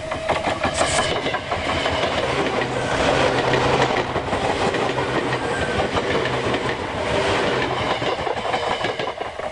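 Seibu 5000 series Red Arrow electric limited-express train passing close by at speed, its wheels clattering over the rail joints in a rapid run of clacks. The rush of noise swells to its loudest a few seconds in and drops away near the end as the last car goes by.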